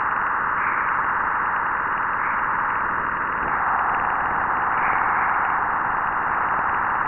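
Juno spacecraft Waves instrument data from Jupiter's magnetopause crossing (trapped continuum radiation, plasma radio emissions) sped up into audible sound: a steady hiss, its lower edge dropping a little about three and a half seconds in.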